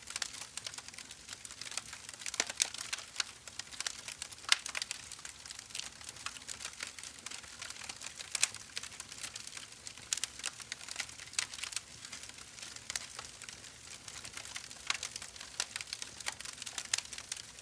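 Wood fire burning in a fireplace: irregular sharp crackles and pops from the burning logs over a faint steady hiss, with a few louder pops standing out.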